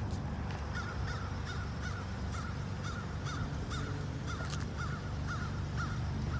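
A bird calling over and over, short chirping calls about two a second, over a steady low rumble.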